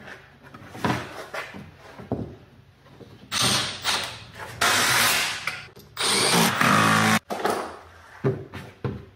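Cordless drill running in three runs of about a second each, driving fasteners to secure a Tesla Model 3's plastic underbody panel, with a few light knocks of the panel before them.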